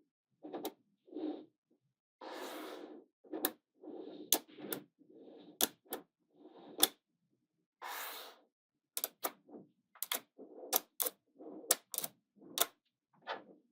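Small magnetic balls clicking sharply as they snap onto one another, a dozen or so separate clicks, between short rolling, scraping sounds as balls are moved and pressed into place.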